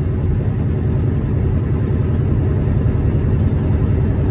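Steady low rumble of a semi-truck's engine and road noise, heard from inside the cab while driving on a snow-covered highway.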